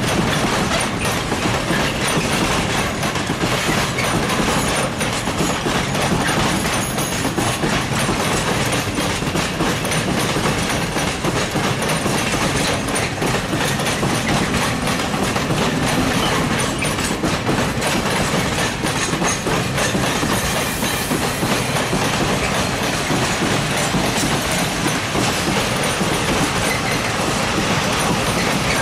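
Freight train of steel open-top gondola wagons loaded with scrap rolling past. It makes a steady rumble and rattle, with wheels clacking continuously over the rail joints.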